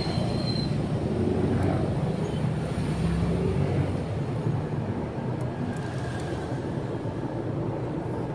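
Motorcycle on the move along a highway: a steady engine drone with road and wind noise.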